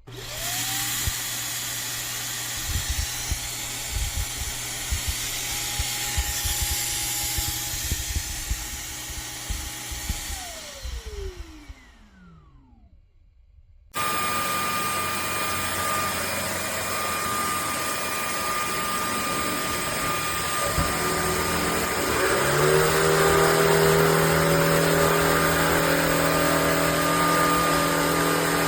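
Shark cordless stick vacuum motor switched on, spinning up with a rising whine, running steadily, then switched off and winding down with a falling whine. After a short gap a second steady motor sound starts abruptly and steps up in pitch about eight seconds later.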